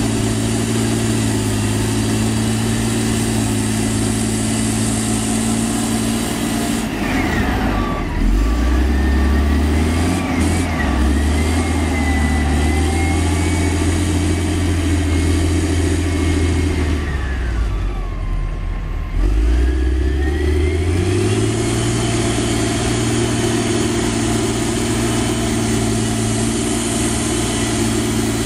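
Dynapac CT300 padfoot compactor's diesel engine running while it pushes soil with its dozer blade. The engine note drops in pitch about seven seconds in, with a whine gliding up and down over it, then climbs back to its first pitch about twenty seconds in.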